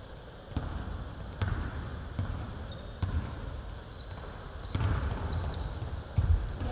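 A basketball being dribbled on a hardwood gym floor, with single thumps roughly once a second. From about four seconds in, players' sneakers squeak on the court in short, high chirps.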